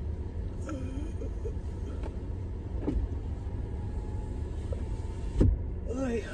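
Low steady rumble of a car idling, heard from inside the cabin. A power window runs up and shuts with a thump about five seconds in. A drawn-out yawn comes twice.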